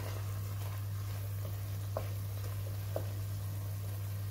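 Cooked-down spinach bubbling and sizzling gently in oil in a steel pot as a wooden spoon stirs it, the spoon knocking the pot about two seconds in and again a second later. The oil has risen to the top, the sign that the dish is done. A steady low hum runs underneath.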